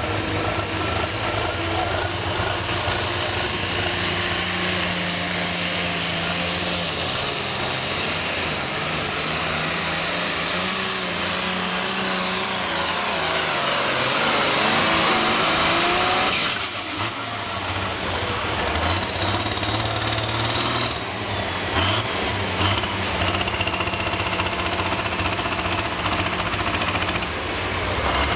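Turbocharged diesel engine of a New Holland light limited turbo pulling tractor running at full throttle on a pull. The turbo whine climbs to a high scream over the first few seconds and holds, with the engine at its loudest just before it cuts off suddenly about two-thirds of the way in. The turbo whine then falls away and the engine runs on at low revs.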